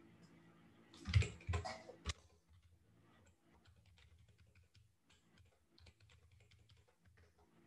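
Faint typing on a computer keyboard, irregular key clicks, with a brief louder cluster of sounds about a second in.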